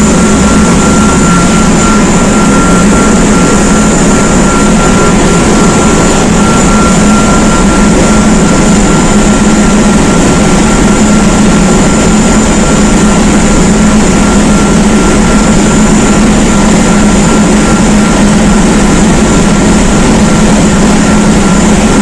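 Loud, steady machinery din of a ship's engine room around the auxiliary steam boiler, with a constant hum and a steady high whine.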